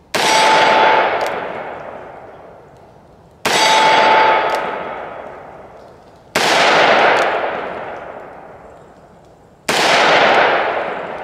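Four slow, aimed single-action shots from a Taurus Tracker 692 revolver firing .357 Magnum, about three seconds apart. Each is a sharp crack with a long fading tail, and a brief ringing tone follows the first two.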